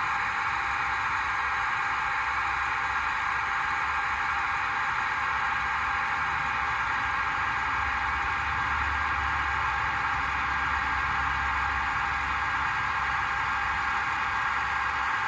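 Small electric motors and gearing of a Roco EDK 750 digital model crane whirring steadily as it slews and raises its boom, with a low hum that strengthens for a few seconds midway.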